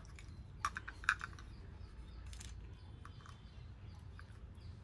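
A handful of faint, scattered plastic clicks and taps from a Beyblade launcher, its toothed ripcord and a metal top being handled, over a low steady hum.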